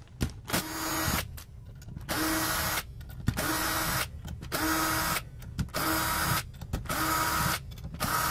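Cordless power screwdriver running in about seven short bursts of around a second each, with a steady whine, as it backs out the screws holding a charge controller's FET bar.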